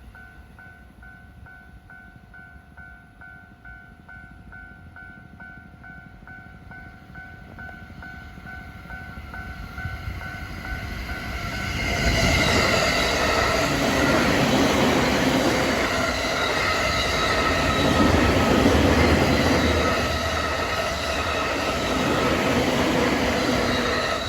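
Level crossing warning bell ringing in a quick, even repeat. Then a Tokaido Line train approaches and passes at high speed, loud from about halfway through with the rushing of wheels on rail.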